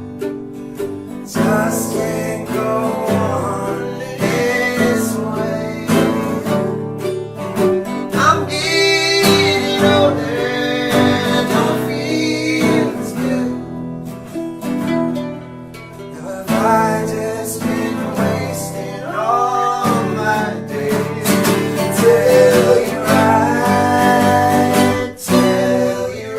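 Acoustic guitar music in a country-folk style, plucked and strummed.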